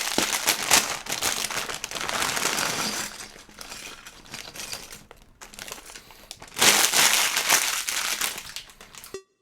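Thin plastic Lego parts bag crinkling as it is handled and opened to lay out the pieces, loud for the first few seconds, quieter in the middle, then loud again about two-thirds of the way in.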